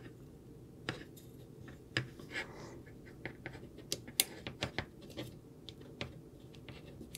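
Carbon fibre drone frame plates handled by hand: irregular light clicks, taps and scrapes as the parts are fitted and set down.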